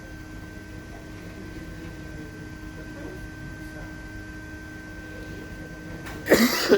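A steady low electrical hum with a faint high whine, then a loud cough about six seconds in.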